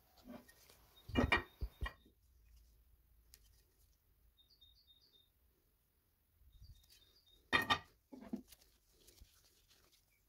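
Metal engine parts being handled on a bench: a few knocks and clinks about a second in, then one louder knock near eight seconds. Faint short bird chirps come in small runs between them.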